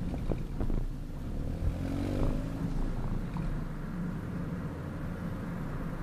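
Exhaust note of a 2010 Mazda 3 GT's 2.5-litre four-cylinder engine through a new Magnaflow muffler, heard right at the tailpipe while driving. The pitch rises briefly about two seconds in, then settles to a steady drone.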